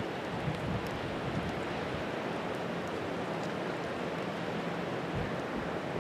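Steady rush of wind and falling hail over open ground, with a few faint scattered ticks.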